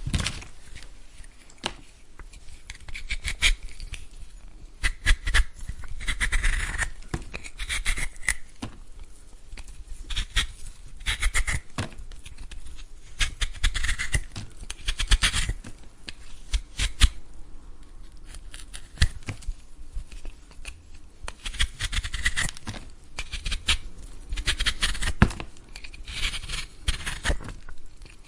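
A vegetable being peeled: short, repeated scraping strokes of a blade along the skin, with sharp clicks and gaps of a second or two between bursts of strokes.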